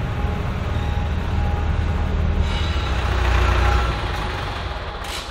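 Diesel tractor engine running with a steady low rumble, easing off about four seconds in. A short sharp knock comes just before the end.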